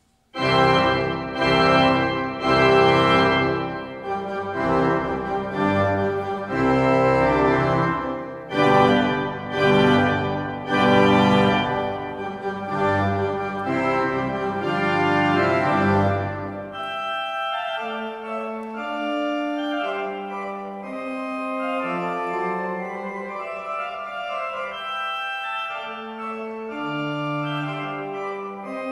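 1863 Witte pipe organ playing an overture. It comes in suddenly just after the start with loud full chords over a deep bass, then about halfway through changes to a lighter, quieter passage of moving notes higher up, without the deep bass.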